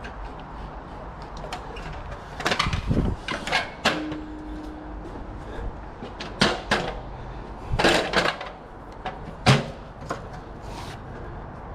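Irregular knocks, scrapes and rustles from gloved hands pulling and fixing a Cat 5 cable along timber beams. They come in short clusters, the sharpest knock near the end.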